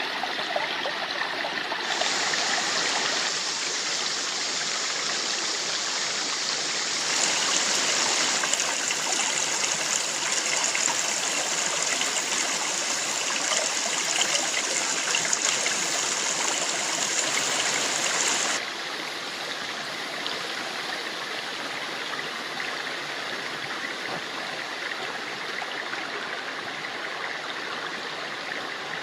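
A valley stream flowing, a steady rush of water. It gets louder about two seconds in and again around seven seconds, then drops back suddenly near the middle.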